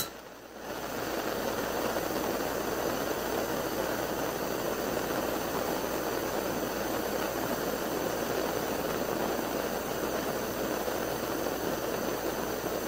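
Oxy-fuel torch lit with a brief click, then its flame burning with a steady rushing hiss from under a second in, heating a seized, rusted bolt.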